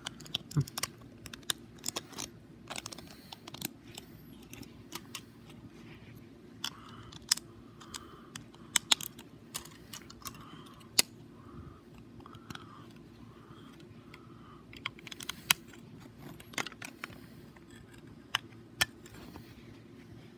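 Plastic Lego bricks and plates being handled and pressed together: irregular sharp clicks and clatters, a few of them louder snaps.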